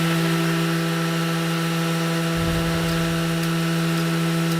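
An electric power tool motor running at a steady, even speed with a constant hum, having just spun up. There is a brief low rumble about halfway through.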